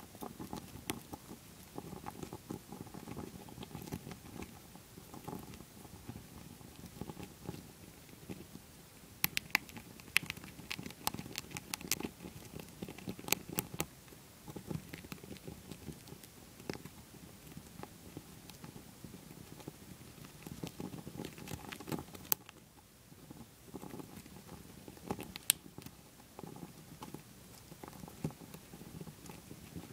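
Dwarf hamster gnawing and chewing a shelled peanut close up: a faint, continuous crackly patter of small bites, with sharp clicks scattered through, most of them clustered about a third of the way in.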